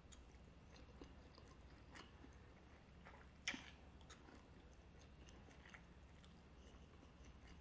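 Faint chewing of a mouthful of instant fried noodles, with scattered small wet mouth clicks and one sharper click about three and a half seconds in.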